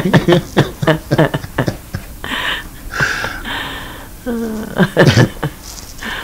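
Beach pebbles clicking and scraping as a hand scratches and rubs through the gravel, at first in quick sharp clicks, then in rasping scrapes. A short voiced sound comes about four to five seconds in.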